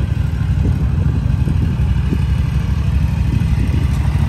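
An engine idling: a steady, low hum.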